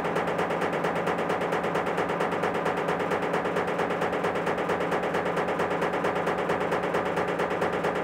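Top-loading washing machine running with a couple of rugs inside, making a fast, steady rhythmic knocking that repeats evenly without let-up.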